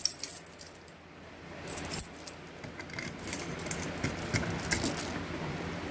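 A bunch of keys jangling, with small irregular metal clicks and rattles as a key is worked into a fire alarm pull station's lock to open it for reset.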